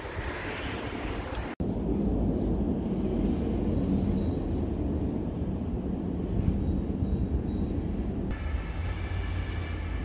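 City street ambience: a steady low rumble of traffic, broken by a brief cut about one and a half seconds in. Near the end a high steady whine joins on several pitches at once.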